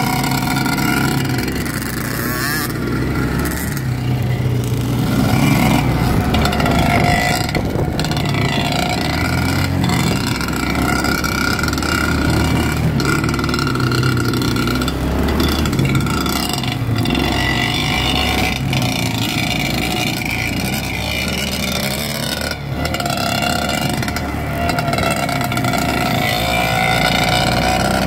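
Dirt bike engines running hard along a trail, revving up and down with the throttle, one of them a Yamaha YZ close ahead.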